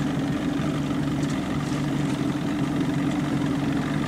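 Outboard motor of a small skiff running steadily at low trolling speed, a constant low hum.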